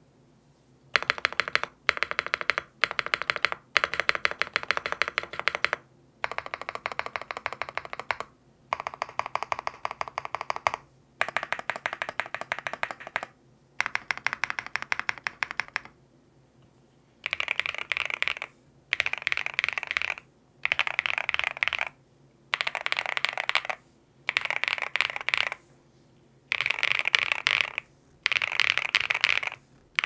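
Typing on a Qwertykeys QK80 custom mechanical keyboard with lubed Bsun Raw linear switches, a polycarbonate plate, full foam and PBT keycaps. The key clacks come in fast runs of one to two seconds, separated by short pauses. From about seventeen seconds in, the runs are shorter and the clacks sound sharper and higher.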